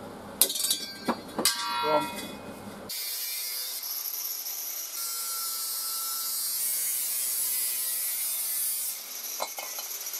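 Metal knocks and clangs as a steel gas canister is handled, then about three seconds in an angle grinder with a cutting disc starts cutting into the steel of a disposable balloon-gas canister. The cut is a steady high hiss that stops about a second before the end.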